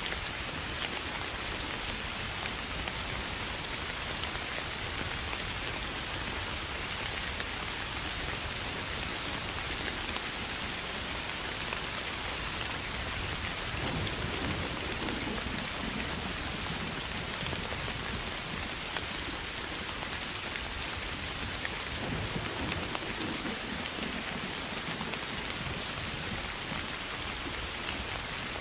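Steady rain falling, an even hiss throughout. Low rumbles of thunder swell up about halfway through and again about three quarters of the way in.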